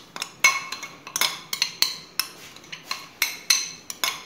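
Metal spoon scraping and knocking against the inside of a glass bowl, emptying out thick green masala paste: repeated ringing clinks, about three a second.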